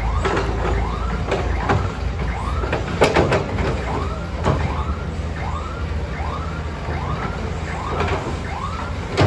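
Diesel engine of an earth-moving machine or truck running, with a repeating siren-like warning tone that rises and falls about twice a second over it. Two sharp clanks sound, about three seconds in and again a second and a half later.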